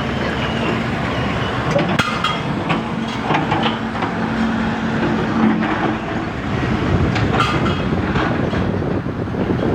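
An engine running steadily with a low hum, with scattered knocks and clanks over it.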